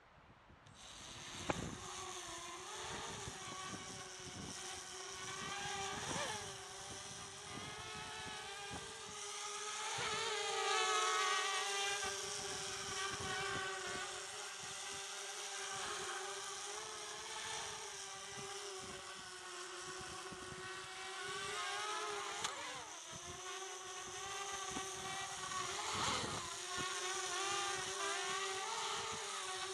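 Eachine Falcon 180 quadcopter's motors and propellers whining as they spin up about a second in, the pitch wavering up and down with the throttle as it flies. Gusts of wind buffet the microphone underneath.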